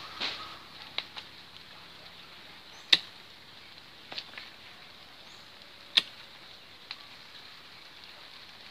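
Hand pruning shears snipping through thin bonsai branches: a series of sharp clicks as the blades close, the loudest about three and six seconds in, with quieter snips around them.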